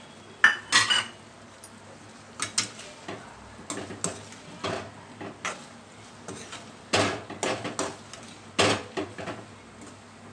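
Steel spatula knocking and scraping against a metal kadai as grated dry coconut and drumstick pieces are stirred, in irregular strokes. The strongest clanks come just after the start, around the middle and again near the end.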